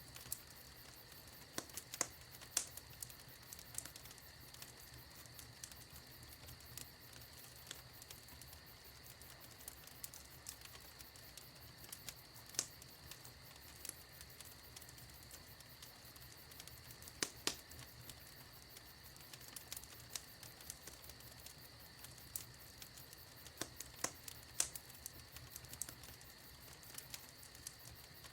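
Wood fire in a fireplace crackling, with irregular sharp pops and snaps, a few louder than the rest, over a faint steady hiss.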